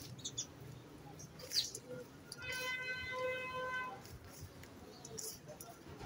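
Hands working dry, crumbly ground bait of soil and bran in a steel bowl: faint gritty rustling and scraping. Around the middle, a steady pitched tone with several overtones sounds for about a second and a half in the background.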